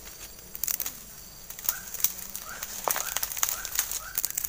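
Outdoor animal calls: short rising chirps about once a second, among clusters of sharp, high-pitched clicks.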